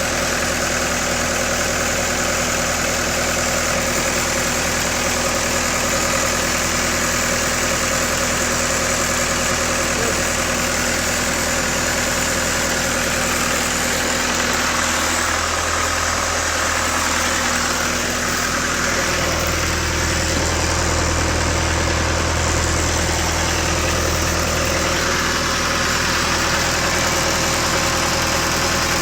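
Engine of a Lincoln SAM 400 engine-driven welder running steadily at idle, its low hum growing stronger about two-thirds of the way through.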